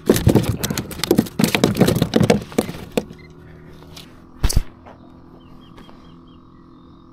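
A quick, loud run of knocks and rattles lasting about three seconds, then a single thump about four and a half seconds in, over a faint steady hum.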